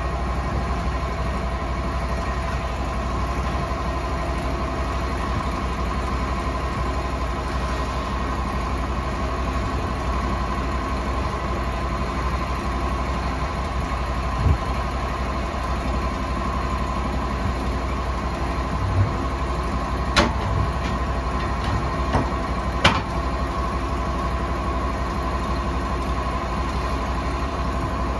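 Sawmill engine running steadily with a constant whine over a low rumble. A single low thump comes about halfway through, and several sharp clanks follow a few seconds later, typical of a heavy log being handled on the mill.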